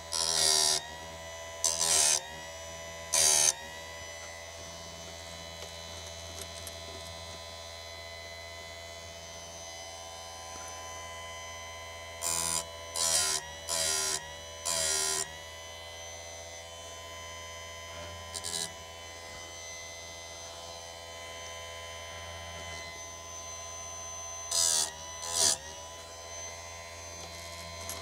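Sturm BG6060 electric chain-sharpening grinder running with a steady whine, its disc touching the chainsaw chain's teeth in about ten short grinding bursts in three groups. The motor's pitch dips briefly with each touch. The touches are kept short so the tooth does not overheat.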